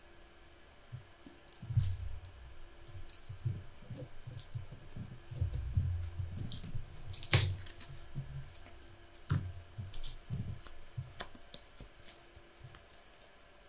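Trading cards being handled and set down between plays: scattered soft taps and light clicks, with one sharper click about seven seconds in.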